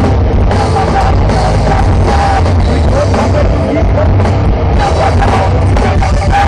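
Grindcore band playing live over a festival PA: loud, dense distorted guitars, bass and drums, running without a break.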